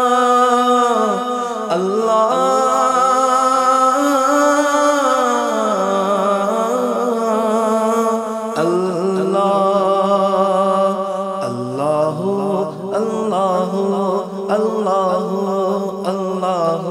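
Background Urdu devotional song (hamd): a voice sings long, wavering held notes with no clear words over a steady low drone that steps down in pitch twice.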